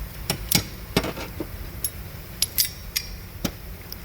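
Pliers being handled and worked, metal on metal: a string of about a dozen sharp, irregular clicks and clinks.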